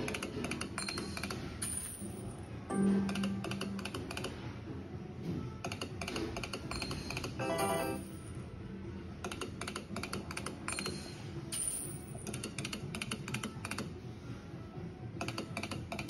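Electronic slot machine game sounds: music with rapid clicking effects throughout and short chimes about three and seven seconds in.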